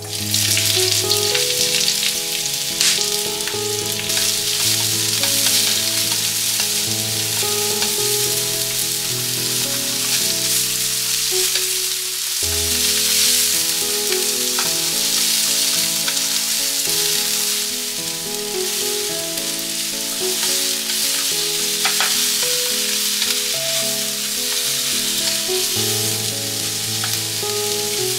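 Food sizzling in oil in a frying pan, starting suddenly as it goes into the pan, with a few sharp clicks of stirring.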